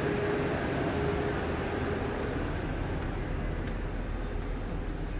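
Steady low drone of an idling coach bus and its air conditioning, with a steady mid-pitched tone that fades out about halfway through as the sound turns duller.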